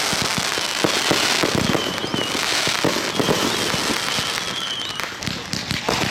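Fireworks going off: a dense run of sharp pops and crackles, many in quick succession, with faint high whistles coming and going.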